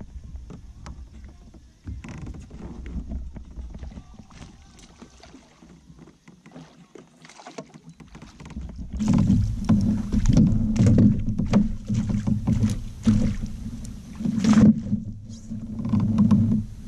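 A small bass being reeled in and landed beside a plastic fishing kayak. Light clicks and handling noise come first. From about nine seconds in, louder irregular splashing and knocking against the hull are heard as the fish thrashes at the surface and is lifted aboard.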